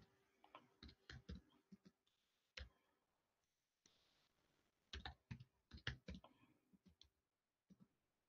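Faint, irregular clicks of someone working a computer keyboard and mouse while setting up a screen share, in small clusters about a second in, at about two and a half seconds, and between five and six seconds.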